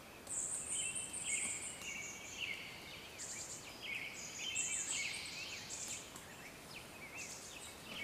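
Faint outdoor ambience of several small birds chirping and trilling in the background: short, high-pitched calls scattered throughout.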